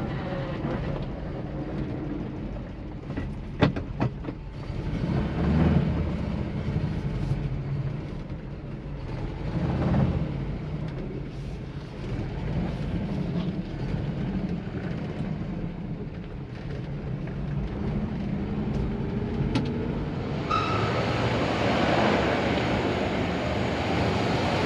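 Moskvich-412 four-cylinder engine running while the car drives, heard from inside the cabin, with a few sharp clicks. About four-fifths of the way through, a louder, broader rushing noise comes in.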